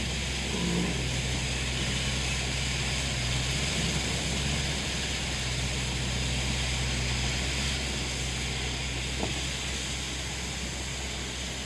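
Tractor-mounted almond trunk-shaker harvester running steadily: a low engine hum under a steady hiss.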